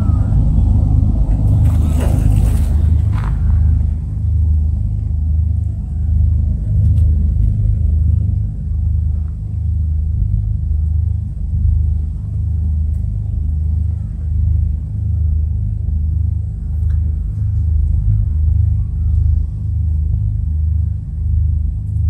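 Low, steady rumble of a running engine, with a regular throb that swings between two low pitches. A brief hiss of noise comes about two seconds in.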